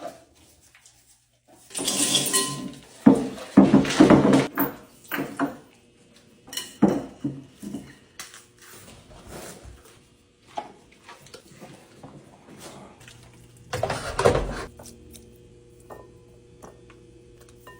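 Irregular clattering and knocking of hard objects being handled, in clusters: a dense run about two to five seconds in, a few knocks around seven seconds, and another burst near fourteen seconds.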